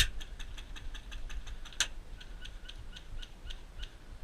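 A single sharp airsoft pistol shot a little under two seconds in, over a faint, regular ticking of about four ticks a second.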